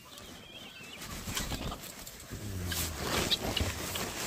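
Farm poultry calling: a low cooing call in the second half, a few short high chirps near the end, over a rustling noise that grows louder from about a second in.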